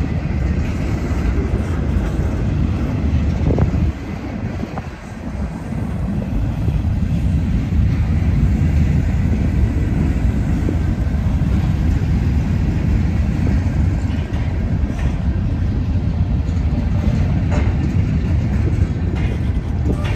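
Long Wheeling and Lake Erie freight train rolling past: a steady low rumble of wheels on the rails, dipping briefly about four seconds in.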